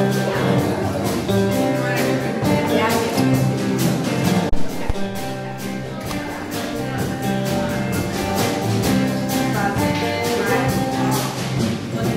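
Live band playing electric guitars over a drum kit keeping an even beat. A brief low thump about four and a half seconds in.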